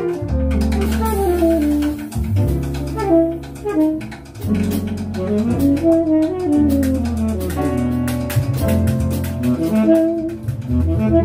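Live jazz combo playing: a saxophone carries a melody line that climbs and falls, over double bass, piano, and drums with steady cymbal strokes.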